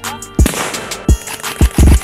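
Music with a beat of deep, heavy bass hits and crisp high clicks, one longer bass note near the end.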